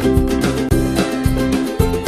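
Upbeat background music with a steady beat and plucked string instruments.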